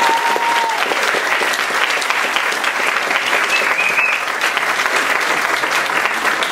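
Audience applauding, a steady dense clapping, while the music's last held note ends under it within the first second.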